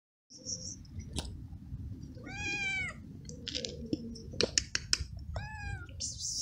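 Hungry stray cat meowing for food: two rising-and-falling cries about three seconds apart. Between them come a few sharp clicks, over a low rumble.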